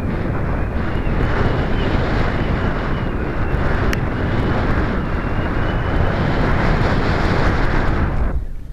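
Wind buffeting a small onboard camera's microphone, a loud steady rumble with hiss, under a faint wavering high whine. The noise dips briefly near the end.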